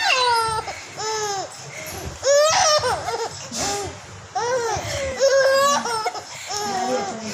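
Baby laughing in a string of short, high-pitched squeals and giggles with brief pauses between them.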